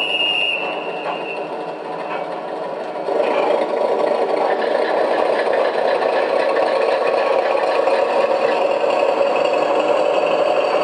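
Gauge 1 model diesel locomotive running its diesel engine sound, which gets louder about three seconds in as the locomotive revs up to pull away. A short high whistle sounds at the very start.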